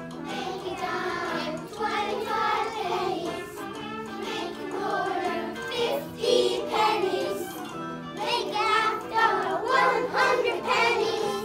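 A class of young children singing a song together, with instrumental accompaniment holding steady low notes underneath.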